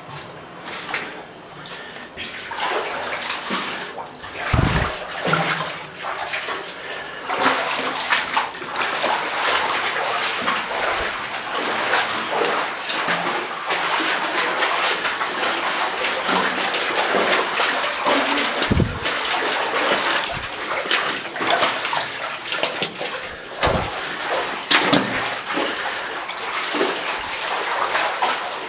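Feet wading through shallow cave water, with continuous splashing and sloshing and a few dull thumps.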